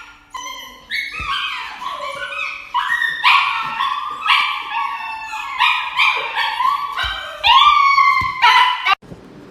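A dog howling and crying in a long run of short, high, wavering cries that stop abruptly near the end.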